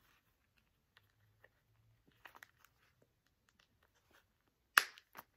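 Soft handling sounds of a cleaning cloth being pushed into a small coated-canvas pouch: faint scattered rustles and clicks, with one sharp, louder handling noise near the end.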